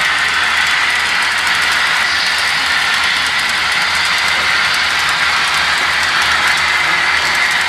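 Model freight train rolling along the layout track: a steady hiss of wheels on rails with faint, rapid clicking.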